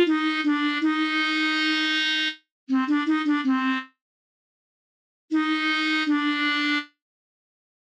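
Music: three short melodic phrases in a reedy, sustained instrument tone, each cutting off into dead silence. The first holds a long note after a few quick ones, the second is a run of quick notes, and the third holds a long note again.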